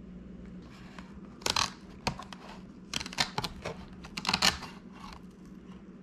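Hand snips cutting through a stiff plastic battery case: a series of short, sharp snips at irregular intervals, starting about a second and a half in.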